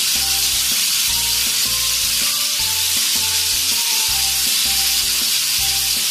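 Boneless chicken breast pieces deep-frying in a pan of hot oil, a steady loud sizzle; the pieces are still pale, left untouched until they change colour. A soft, repeating low tune plays underneath.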